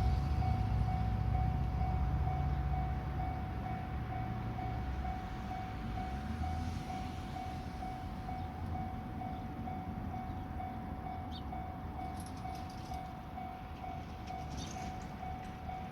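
Railway level-crossing warning bell ringing in an even, steady pulse, a little under two strokes a second. Under it, the low rumble of a passing train fades away over the first few seconds.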